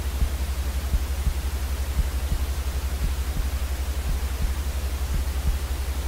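Steady white noise played for infant sleep: an even hiss over a constant low rumble, with faint low thumps about three times a second.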